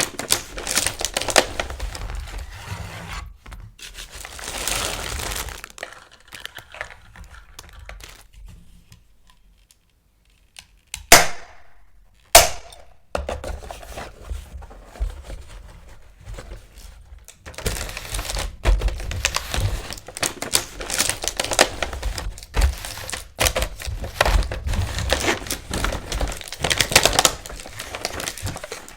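Toy packaging being handled, crinkled and torn open, with irregular rustling and knocks. A little past the middle there is a short quiet gap, then two sharp snaps about a second apart, the loudest sounds.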